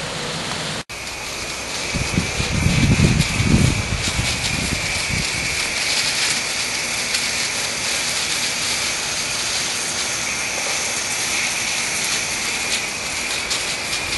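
Garden hose with a hose-end sprayer shooting a jet of water into a tree's leaves: a steady hiss of spray and droplets, like rain. A louder low rumble joins about two to four seconds in.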